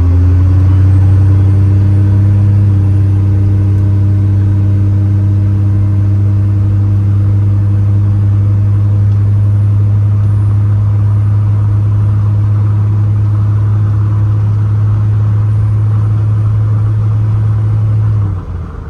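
First-generation Dodge Ram's 5.9 L Cummins inline-six turbo diesel pulling hard under heavy throttle, heard from inside the cab. Its pitch climbs over the first few seconds, then holds a steady loud drone at higher RPM, and drops away suddenly near the end.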